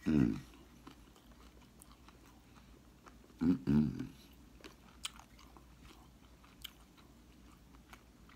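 A person chewing crispy cornmeal-fried fish, with small crunches and wet mouth clicks. Brief non-word voice sounds come at the start and twice about three and a half seconds in.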